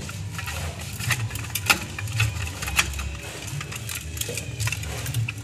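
A paintbrush scrubbing quickly over a car's rear drum brake shoes and backing plate, bristles scratching on metal in short strokes with scattered clicks, over a low steady rumble.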